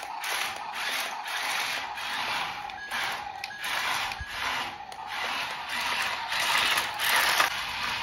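Toy RC dump truck driving over sand: its small electric motor, gears and tyres make a rasping, hissing grind that swells and fades about twice a second.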